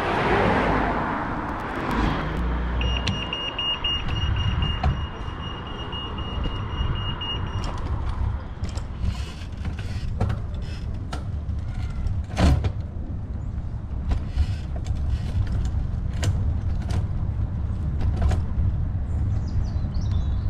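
Wind rumble on the microphone and road noise during a bicycle ride, broken by sharp knocks and rattles, the loudest about twelve seconds in. A steady high-pitched tone sounds from about three seconds in until about eight seconds in.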